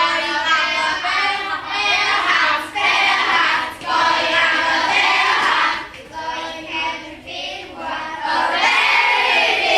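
A group of children's voices chanting in unison, in short phrases broken by brief pauses.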